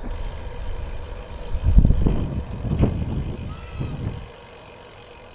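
Wind buffeting the microphone of a moving bicycle rider: an uneven low rumble with stronger gusts about two and three seconds in, dying down near the end.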